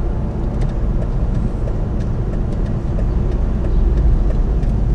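Car cabin noise while driving slowly through town: a steady low rumble of engine and tyres on the road, with a few faint light ticks.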